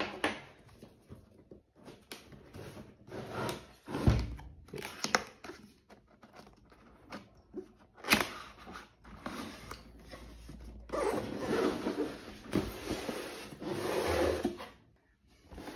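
Cardboard packaging being opened and handled: the inner box scraping and sliding against its outer sleeve, with rustling, a sharp knock about four seconds in and another about eight seconds in, and a longer stretch of rubbing towards the end.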